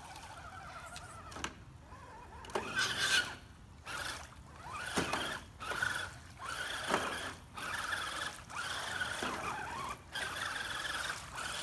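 Electric motor and drivetrain of a radio-controlled scale crawler whining in short throttle bursts about once a second, each burst cutting off briefly before the next, as the truck pushes through mud.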